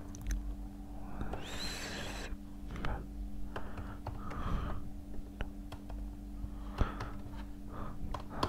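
Light clicking of a laptop keyboard and trackpad being typed on, over a steady low hum, with one loud breath a little over a second in.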